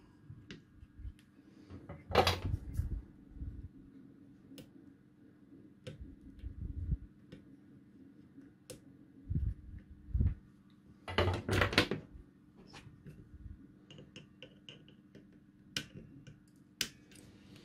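Scattered clicks, knocks and low thumps of a small circuit board being handled and taken out of a spring-loaded plastic PCB holder, with a louder cluster of clicks about eleven seconds in. Near the end come a few sharp snips of side cutters trimming component leads.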